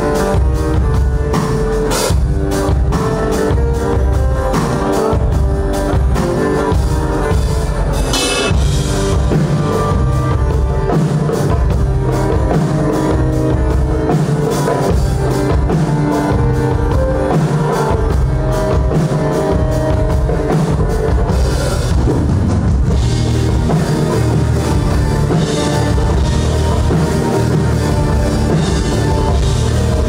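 A live band playing loud rock music, with a drum kit keeping a steady beat under guitars.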